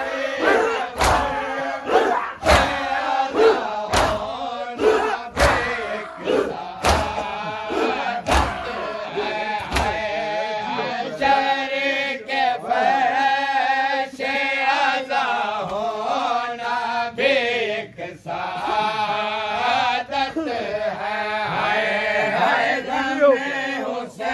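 A crowd of men chanting a mourning refrain together, with hands striking chests in matam about every second and a half. The strikes stop about ten seconds in, and the chanting carries on.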